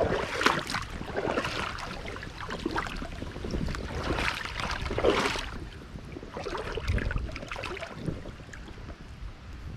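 Water sloshing and splashing in irregular surges as someone wades through a creek, with wind buffeting the microphone.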